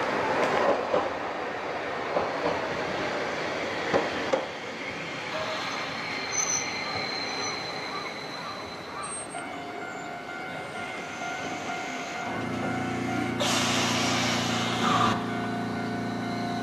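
Hankai Tramway low-floor tram pulling in and coming to a stand: wheels clicking over the rails with a faint high wheel squeal. Once it stands, a steady electrical hum sets in, and about two thirds of the way through there is a burst of air hiss lasting about a second and a half.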